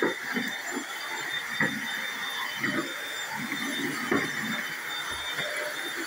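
Corded vacuum cleaner running steadily with a high motor whine, its head knocking now and then as it is pushed along the hardwood floor against the baseboard.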